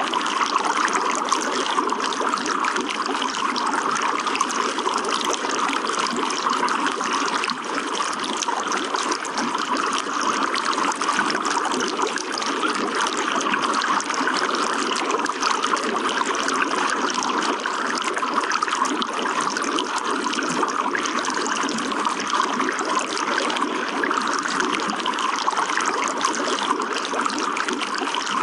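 Running water trickling and splashing in a steady, unbroken stream.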